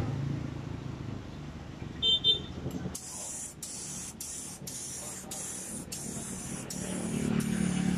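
Gravity-feed compressed-air paint spray gun hissing as it sprays paint in short passes, the hiss cut by brief gaps about every half second as the trigger is released and pulled again. It starts about three seconds in, just after a short high-pitched chirp.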